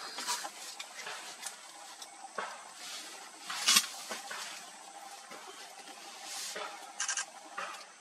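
Pale-chinned blue flycatcher bathing in a shallow stream: scattered small splashes and patters of water, the loudest about three and a half seconds in, with a quick run of ticks near the end.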